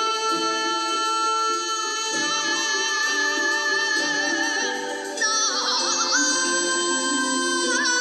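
Background music: a woman singing long, held notes with vibrato over an instrumental accompaniment.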